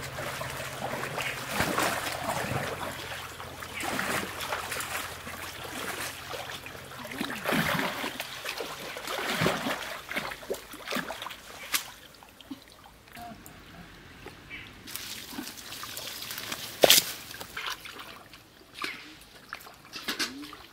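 Pond water sloshing, splashing and trickling as a fishing net is dragged through the shallows and hauled up the bank. The noise thins out after about twelve seconds, and one sharp knock comes near the end.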